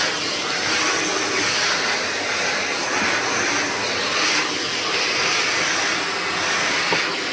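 Shark vacuum cleaner running steadily on a hard floor: a loud, continuous rushing hiss of air.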